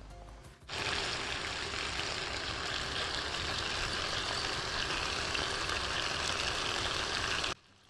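Chicken pieces sizzling as they sauté in a pot, a steady sizzle that starts abruptly about a second in and cuts off abruptly near the end.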